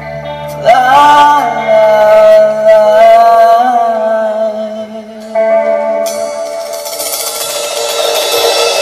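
Live rock band with a male lead singer: the singer holds one long wavering note over sustained keyboard and guitar chords, then a new chord comes in and a cymbal wash swells near the end.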